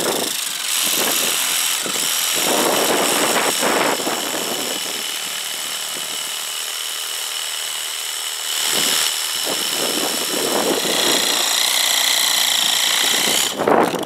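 Battery-powered Ryobi power tool running, a steady high motor whine over a rushing noise that eases somewhat in the middle and swells again, stopping just before the end.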